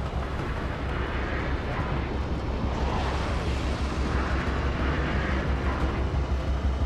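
Missiles in flight: a steady, deep rocket-motor rumble.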